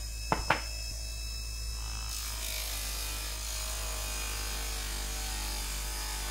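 Electric bench polishing motor running steadily, its cloth buffing wheel spinning while a small metal part is held against it for polishing. Two sharp clicks come near the start.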